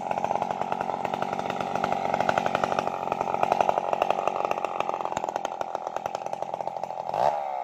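Homemade two-stroke chainsaw built on the Stihl 070 pattern running hard and cutting into a felled sengon log, with a quick rise and fall in engine pitch near the end.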